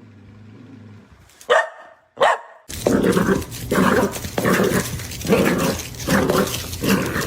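A dog growls low, then gives two sharp barks about a second and a half in. From about two and a half seconds in, barking repeats steadily, roughly one bark every half-second or so.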